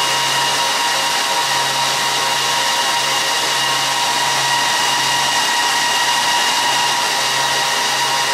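HP ProLiant ML350 G6 server's cooling fans running at high speed during its power and thermal calibration at boot: a loud, steady rush of air with several steady whining tones over it.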